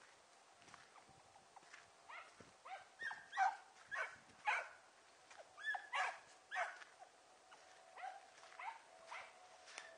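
Hunting dogs giving tongue out of sight in thick brush while trailing a rabbit. They bark in a run of short yelping calls, each dropping in pitch, about one or two a second, and the calls thin out near the end.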